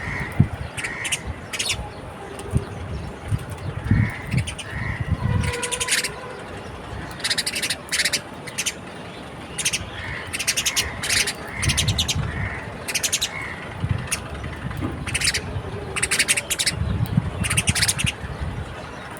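Birds chirping at a feeder: many short, high, rapid chirps in quick clusters, coming again and again, with some low rumbles and bumps in between.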